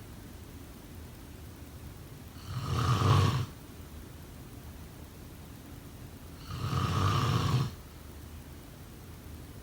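A sleeping person snoring: two snores about four seconds apart, each lasting about a second, one a little after two seconds in and one near seven seconds.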